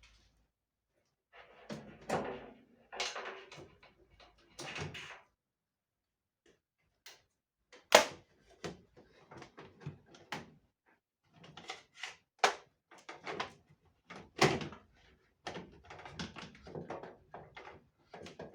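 Irregular knocks, clunks and scraping clatter of tumble-dryer panels and parts being handled during dismantling, with sharp knocks about eight, twelve and fourteen seconds in.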